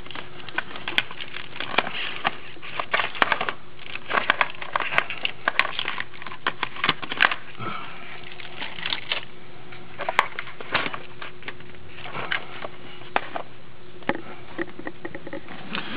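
Irregular clicks, knocks and rustles of handling as a handheld work light is moved and positioned over the engine's intake manifold, close to a hand-held camera. A faint steady hum sits underneath.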